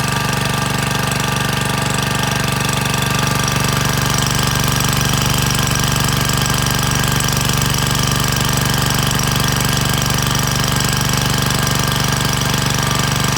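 Small engine-driven water pump running steadily, loud, with a fast, even beat.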